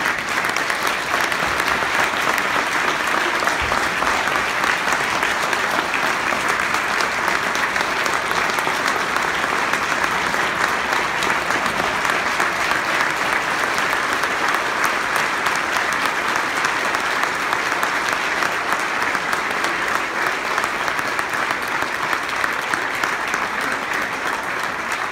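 A large audience clapping steadily and without a break, a long round of sustained applause.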